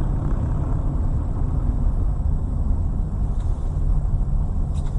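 Steady low rumble of a moving car's engine and tyres, heard inside the cabin through a dashboard camera.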